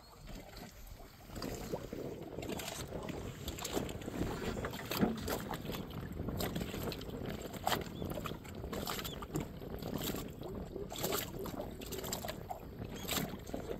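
Water lapping and slapping against the hull of a small sailboat under way, in irregular splashes that grow louder about a second and a half in.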